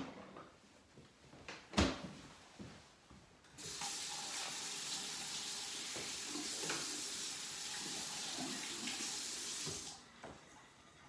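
Kitchen sink tap running in a steady stream for about six seconds, turned on a few seconds in and off near the end. A single sharp knock comes about two seconds in, before the water starts.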